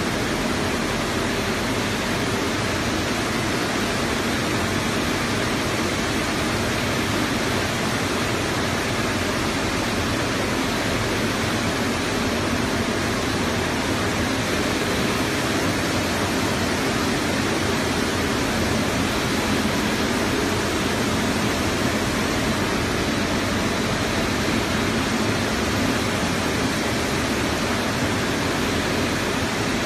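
Seven-colour rotogravure printing machine for plastic film running, a loud, steady, even rush of machine noise with no distinct knocks or rhythm.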